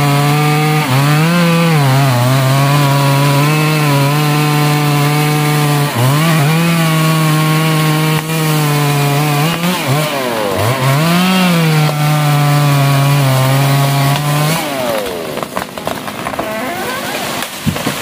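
Gasoline chainsaw running at full throttle as it cuts through the trunk of a large sono tree, its pitch sagging briefly a few times under load and recovering. Near the end the saw's steady tone falls away and a run of irregular cracking and crashing follows as the tree goes over.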